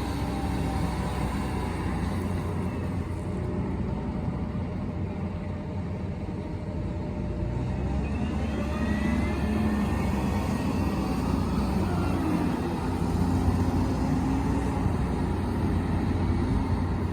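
Farm machinery engine running steadily with a low rumble as the feed mixer wagon is loaded.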